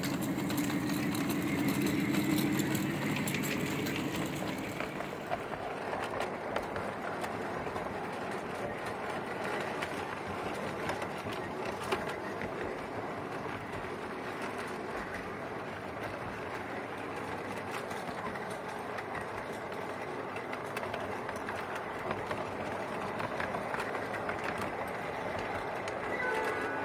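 5-inch gauge miniature railway train running along its track: a low, steady hum from the locomotive for the first few seconds, then a continuous rumble of the wheels on the rails with frequent small clicks.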